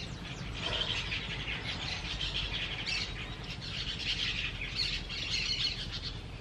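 Many birds calling at once: a busy, unbroken chorus of high chirps and twitters.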